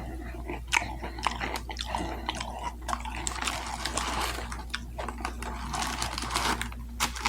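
Close-miked eating: irregular chewing with wet mouth smacks and clicks, thickening into denser wet chewing a few seconds in and again near the end.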